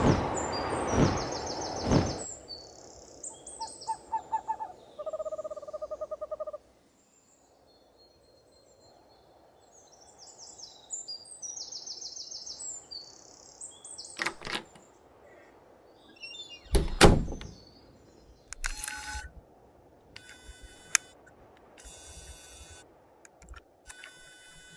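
Bird calls: bursts of high chirps, with a rapidly pulsed hooting call about five seconds in. The first two seconds are a loud noisy rush with several thumps, and two sharp knocks come in the middle.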